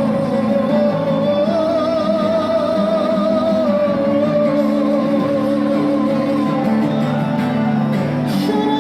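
Live busking performance of a pop song: a singer holds a long note with vibrato over instrumental accompaniment, the music running on without a break.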